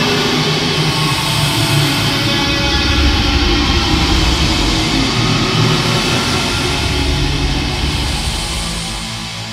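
Dramatic background music, dense and loud, fading out near the end.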